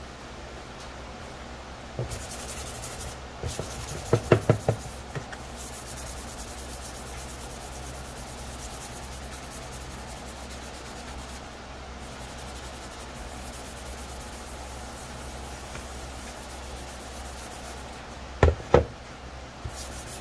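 Plastic helmet shell being hand-sanded with a fine abrasive sheet: steady scratchy rubbing strokes, with a quick cluster of knocks about four seconds in and two more near the end.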